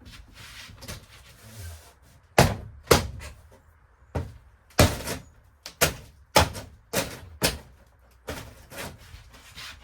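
Demolition of old camper wall paneling: a run of about nine sharp, irregularly spaced thuds and whacks as the paneling is struck and pried loose, the first two the loudest.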